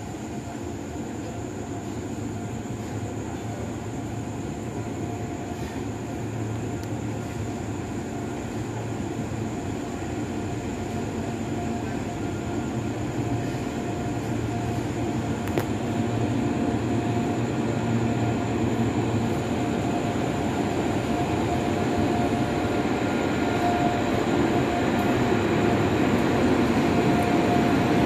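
Two WAG-9 electric locomotives hauling a freight train, approaching and growing steadily louder as they near: a rumble with a steady whine running through it.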